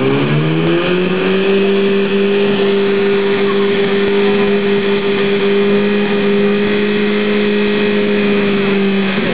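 Portable fire-pump engine running hard at high revs. Its pitch rises briefly at the start, holds steady, then drops near the end.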